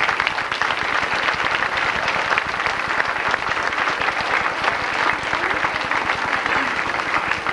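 Large audience applauding, many hands clapping at once in a dense, even patter.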